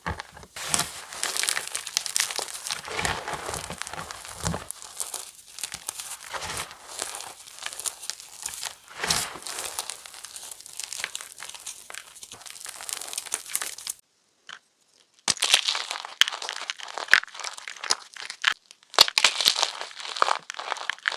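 Fresh chalk mini blocks being crushed and crumbled, a dense run of crisp crunching and crackling. It breaks off into silence about 14 s in, then resumes with sharper snaps.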